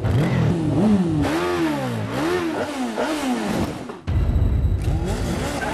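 Motorcycle engine revved up and down over and over, its pitch rising and falling in quick swells. About four seconds in the sound cuts to a deep rumble, then revs up again near the end.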